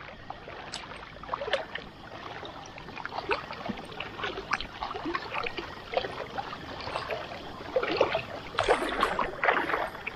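River water sloshing and splashing around people wading waist-deep, an irregular run of small splashes that grows busier and louder near the end.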